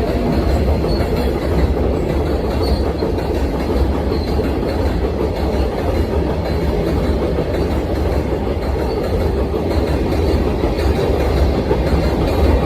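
Kintetsu electric train running on the rails, a loud steady rumble of wheels on track.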